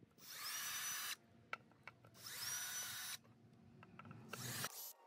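Milwaukee Fuel cordless driver spinning out the bolts that hold the plastic insert in a BYD Atto 3 alloy wheel. It runs twice for about a second each, its whine rising as the motor spins up and then holding steady, with a short third run near the end and a few clicks in between.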